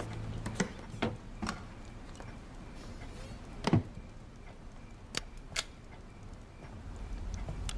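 Quiet handling sounds: a few separate sharp clicks and knocks over faint room noise, the loudest a knock a little under four seconds in, with two crisp high clicks shortly after five seconds.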